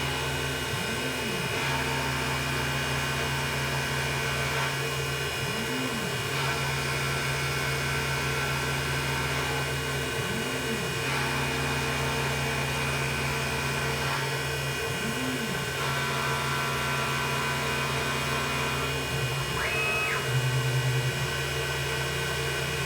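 Grizzly G0704 benchtop mill converted to CNC, running a facing pass with a 3/8-inch cutter: a steady motor hum and whine, with a rising-and-falling whine about every five seconds as the table moves across and reverses.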